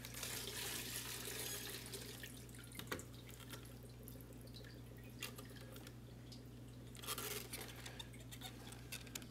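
Fuel dripping and trickling off a fuel pump assembly back into its tank as the assembly is lifted out. A few light knocks of plastic parts come as it is handled.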